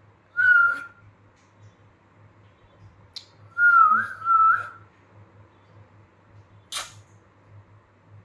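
A woman whistling: a short whistle held at one pitch, then, about three and a half seconds in, a longer wavering whistle in two parts. A brief breathy puff near the end.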